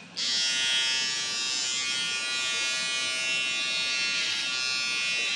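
Electric shaver switched on just after the start, then buzzing steadily as it is held against a man's neck to shave it.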